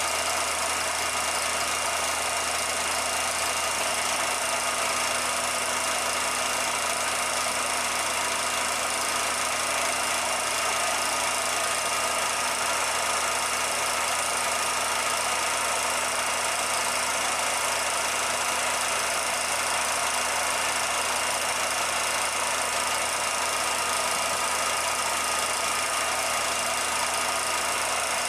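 Steady, unchanging machine running noise: a constant hum with hiss over it, without pause or change in speed.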